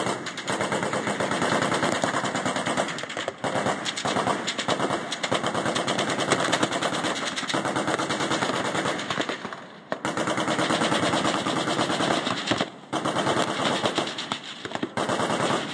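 Machine-gun fire in long bursts of rapid shots, broken by brief pauses about three, ten, thirteen and fifteen seconds in.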